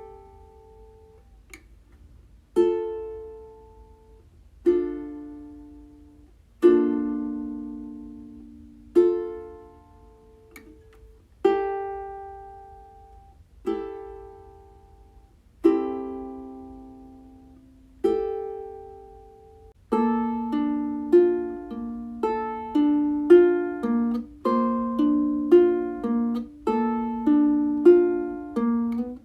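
Solo ukulele: single plucked chords about every two seconds, each left to ring and fade, then a busier picked pattern from about two-thirds of the way in.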